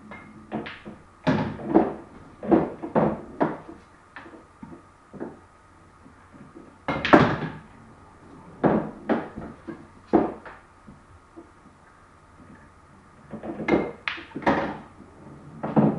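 Pool balls in play on a small pool table: sharp clacks of cue on ball and ball on ball, with thunks of balls dropping into the pockets. They come in clusters of knocks, the loudest about seven seconds in.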